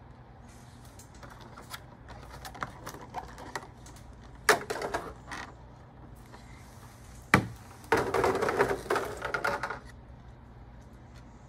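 Clear plastic packaging and a trading card being handled: scattered light clicks, two sharp clicks about four and seven seconds in, then a crackling plastic rattle lasting about two seconds.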